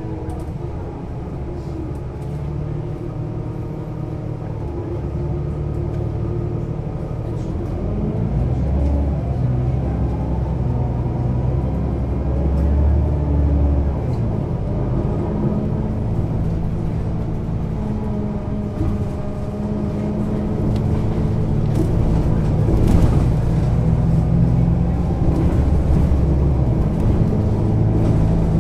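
Solaris Urbino 18 Hybrid articulated bus's diesel-hybrid drive running as the bus is under way: a low engine rumble with tones that rise and fall in pitch with speed, getting louder from about eight seconds in.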